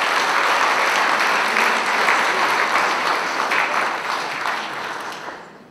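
Audience applauding steadily after a speech, the clapping dying away about five seconds in.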